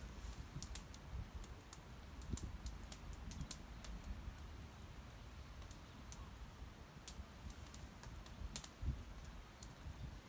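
Wood fire crackling, with sparse, irregular sharp pops and snaps over a low rumble.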